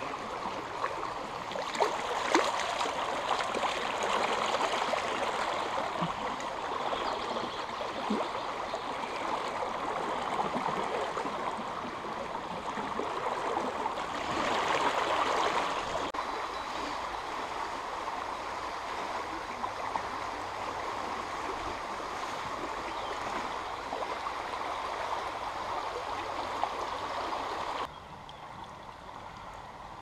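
Shallow stream rushing over a stony bed: a steady flow of water with a few sharp knocks in the first several seconds. About two seconds before the end the water sound drops suddenly to a quieter rush.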